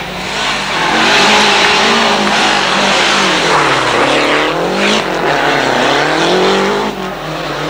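Rally car's engine at high revs as it comes in close: the pitch swings with the throttle, drops sharply as the car passes about four seconds in, then climbs again as it accelerates away.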